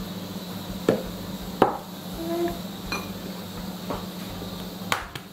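A few light knocks and clinks of a small drinking glass and dishes being set down and moved on a table, the sharpest about a second and a half in.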